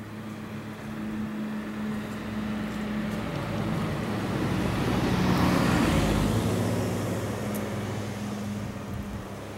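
A road vehicle passing by: its noise builds for about five seconds, peaks a little past the middle, then fades away.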